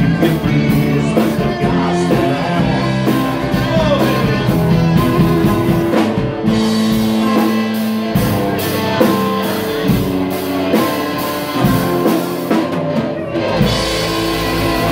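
Live rock band playing: electric guitar, acoustic guitar and drum kit, with a wash of cymbals coming in near the end.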